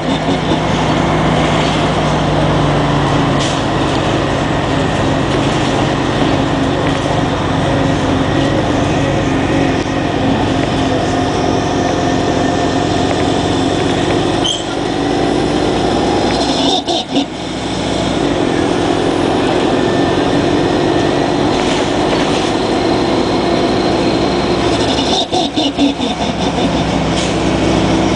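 Engine and drivetrain of a 1999 Orion V CNG transit bus running steadily: a Detroit Diesel Series 50G natural-gas engine with an Allison World B400R automatic transmission. The sound drops briefly a few times.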